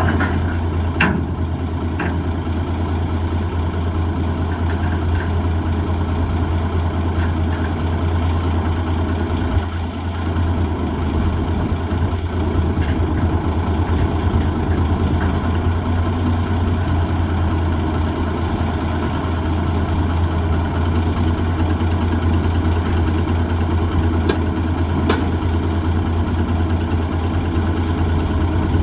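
Heavy truck diesel engine of an M816 wrecker running steadily, with a few short knocks near the start and again late on.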